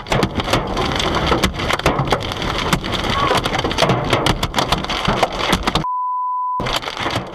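Dense, rapid clatter of many small hard impacts striking a surface, with a steady bleep tone lasting under a second about six seconds in.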